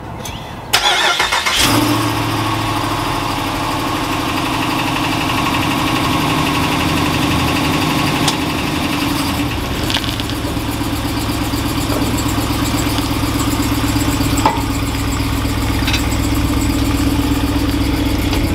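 Ram pickup truck engine cranking and catching about a second in, then idling steadily.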